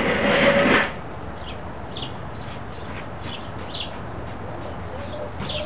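Small birds chirping, short high chirps recurring every second or so over a steady low hum. A short, loud, noisy burst of sound fills the first second.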